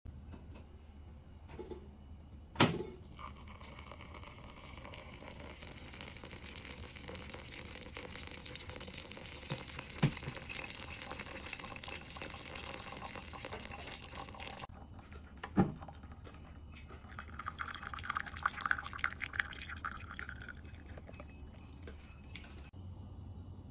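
Water poured in a thin stream onto freshly ground coffee in a plastic mesh-filter pour-over dripper; the pour cuts off suddenly about two-thirds of the way through. A few sharp knocks come before, during and just after the pour, then brewed coffee drips through the filter into the mug.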